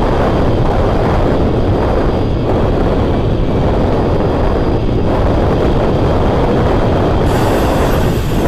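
Strong gusty wind buffeting the microphone: a loud, steady low rumble. A brighter hiss joins in about seven seconds in.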